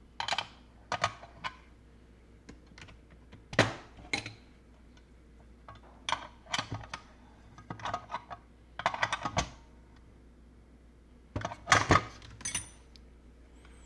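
Irregular clicks, taps and light clatter of small plastic and metal parts being handled and fitted together on a workbench, with the louder clusters coming about a second apart.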